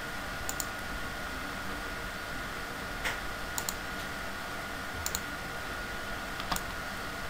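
Computer mouse clicking: a few single clicks and quick double clicks, spaced a second or more apart, over a steady hiss with a faint steady high tone.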